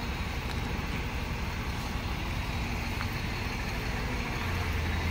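Heavy truck's diesel engine running with a steady low drone, growing louder about four and a half seconds in.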